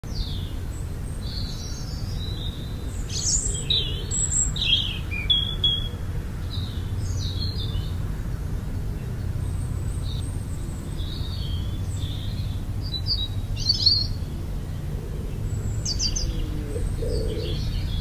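Redwings calling: scattered short, varied chirps and twittering notes, busiest a few seconds in and again near the end, over a steady low rumble.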